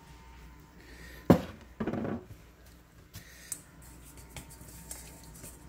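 Kitchen handling of a glass jar and a stainless steel bowl on a wooden board: one sharp knock, a brief scraping rustle half a second later, then a few light clicks.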